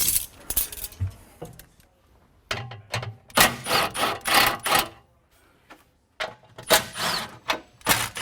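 Hand tools working small bolts on car body metal: irregular bursts of clicking and metallic clinking, with two short pauses.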